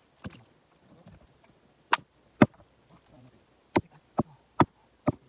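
Hard wooden knocks of split jarrah firewood pieces being handled and tossed, wood striking wood: a few separate clunks, then four in quick succession near the end.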